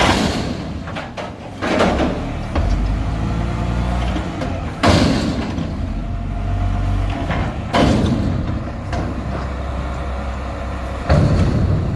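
Mack McNeilus front-loader garbage truck's diesel engine running, with about five sudden loud clanks and bangs a few seconds apart.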